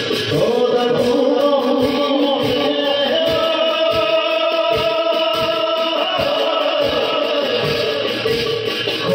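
Bhaona devotional music: male voices chant long held notes over a steady beat of drum strokes, with rhythmic cymbal-like shimmer up high.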